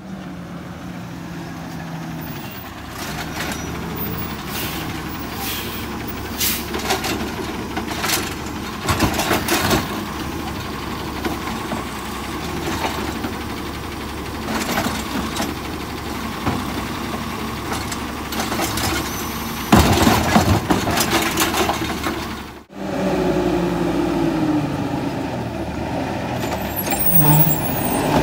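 Natural-gas automated side-loader garbage trucks running while the hydraulic arm grabs, lifts and tips wheeled trash carts into the hopper, with clanks and bangs from the cans, the loudest about twenty seconds in. The sound breaks off briefly about three-quarters of the way through, then picks up with another truck's arm at a cart.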